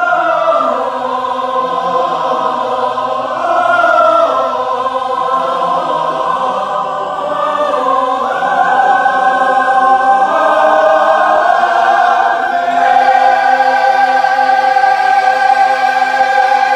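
Mixed choir of men's and women's voices singing in harmony, with no instruments seen, moving through sustained chords and ending on a long held chord near the end.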